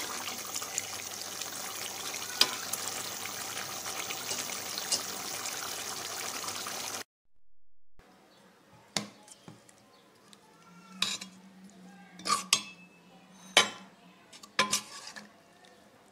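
Beef liver curry bubbling and hissing steadily in its pot, cut off suddenly about seven seconds in. After a moment's silence, a steel spoon clinks and scrapes about five times against a bowl and the pot as the curry is served.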